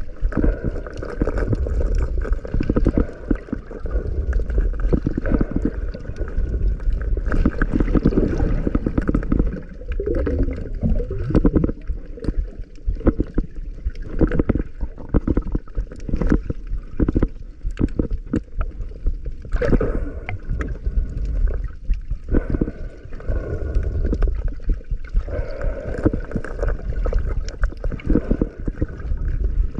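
Water sloshing and gurgling close to the microphone during a dive, muffled, with many small knocks and bubbles throughout.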